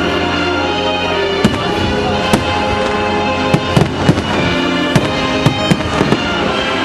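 Aerial firework shells bursting in sharp bangs over steady music. The bangs come singly at first, then faster and closer together through the second half.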